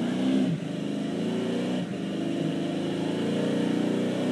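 Pickup truck engine revving hard as the truck drives through deep mud ruts. The pitch climbs, drops sharply about half a second in, dips again near two seconds, then holds high.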